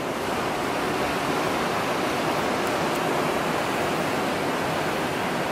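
Ocean surf breaking along the beach below as a steady, even rush of noise.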